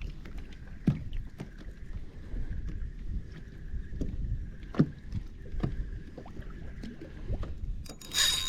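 Water sloshing and small splashes with wind on the microphone while a spinning reel is cranked, giving a faint wavering whine. Near the end the reel's drag starts whining as a hooked fish, a snook, takes line.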